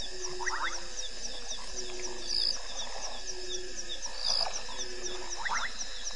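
Night chorus of insects and frogs: a fast, even, high-pitched ticking, with a short low call repeating about every two seconds and a few quick rising chirps.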